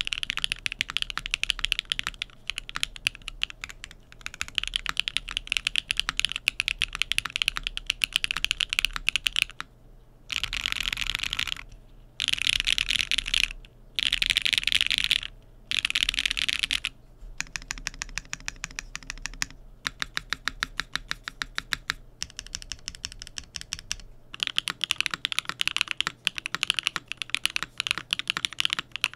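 Continuous typing on a Tess65 mechanical keyboard with clacky Keygeek Kyubi linear switches, an aluminium plate, no foam and IDK Koala keycaps, in bursts of rapid keystroke clicks with short pauses. The board is heard first in its PCB-gasket mount and then top-mounted.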